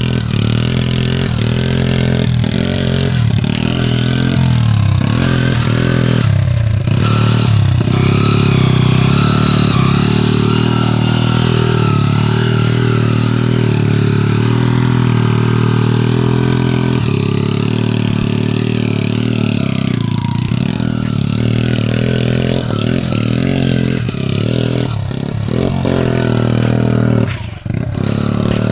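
Motorcycle engine running hard under throttle while riding off-road, its pitch rising and falling as the revs change, with the throttle briefly dropping about seven seconds in and again near the end.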